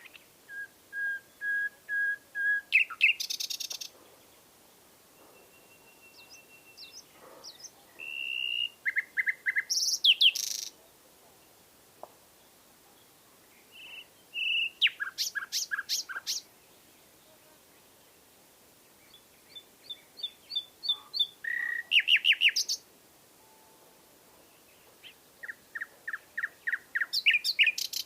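Nightingale singing: five separate phrases, each a run of repeated notes that grows louder and ends in fast trills and whistles, with pauses of two to three seconds between phrases.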